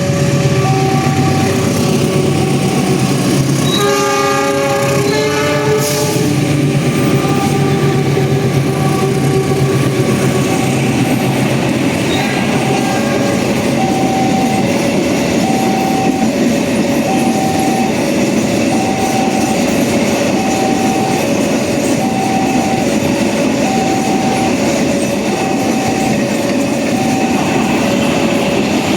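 Railway level-crossing siren sounding a steady two-tone high-low alarm throughout. A train sounds its multi-note horn for a second or two about four seconds in, then passes with a steady rumble and wheel clatter under the alarm.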